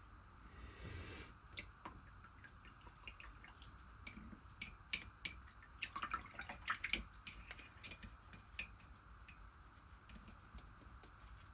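Faint scattered clicks and light taps from brush-painting a foam figure with fabric paint, with a short soft brushing rustle about a second in and a quick run of clicks in the middle.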